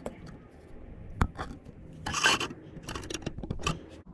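Handling noise from a GoPro being repositioned: scraping and rubbing against the camera with a few sharp clicks, the loudest scrape about two seconds in.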